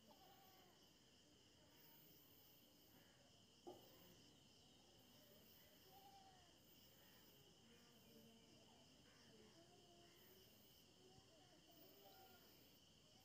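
Near silence with a faint, steady, high-pitched drone of crickets and a few faint chirping calls. A single soft tap sounds about four seconds in.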